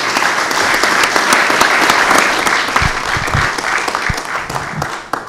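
Audience applauding, a dense patter of many hands clapping that holds steady and then dies away near the end.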